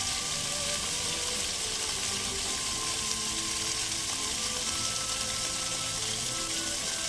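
Jets of an illuminated fountain spraying and splashing down in a steady hiss of falling water, with faint music underneath.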